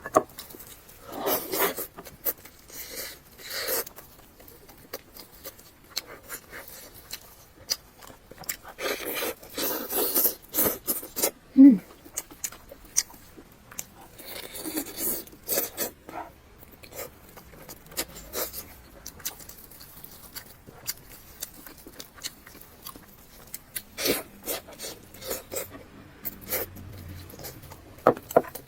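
Close-miked eating: chewing and biting salt-baked chicken, with wet mouth clicks and short crunchy bursts that come and go. About twelve seconds in there is a brief falling hum from the eater.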